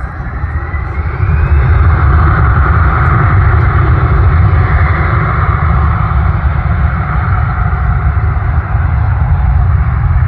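Jet airliner engines running loud, a heavy rumble with hiss above it that swells about a second in and then holds steady.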